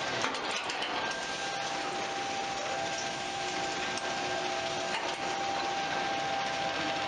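Palletizer machinery running: a steady mechanical noise with a faint steady whine, and a few clicks in the first second.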